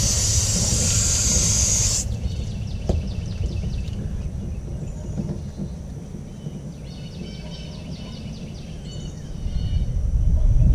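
Garden hose spray nozzle hissing as it jets water over the sink drain parts, cutting off sharply about two seconds in. After it, birds chirp in repeated quick trills over a low rumble that grows louder near the end.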